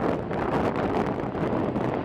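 Wind buffeting the microphone: a rushing noise that rises and falls in gusts.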